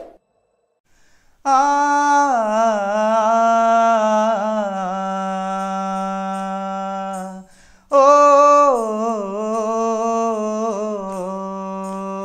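A man humming a wordless, ornamented melody as the opening of a song, in two long phrases: one begins about a second and a half in, the next about eight seconds in. The held notes slide and waver in pitch.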